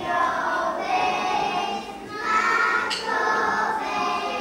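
A group of young children singing a folk song together, in two phrases with a short break about two seconds in.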